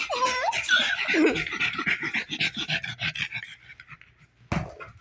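Dog panting fast and evenly, after a short rising and falling voiced sound at the start; a single sharp knock near the end.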